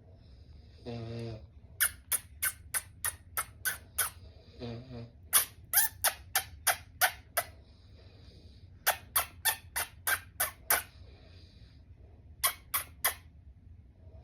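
A person snoring, with two low buzzing snores and breathy hiss between them, broken up by runs of short, sharp squeaks, about three a second in bursts of three to eight.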